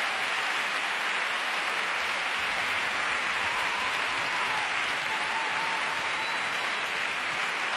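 Audience applauding: a dense, steady sound of many hands clapping.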